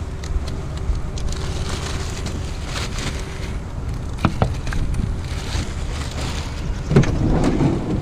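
Steady low rumble of a vehicle running, with wind on the microphone and a few light knocks and rattles; the loudest of them come about seven seconds in.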